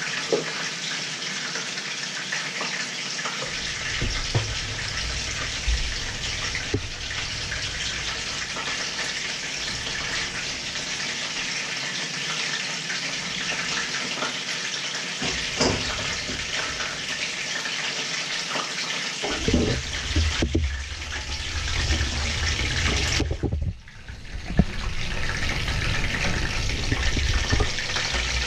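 A steady hiss, with scattered short clinks and knocks and a brief drop in the noise near the end.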